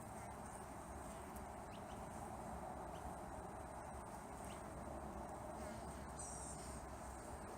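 Honeybees buzzing steadily and faintly around a hive. A bird chirps briefly about six seconds in.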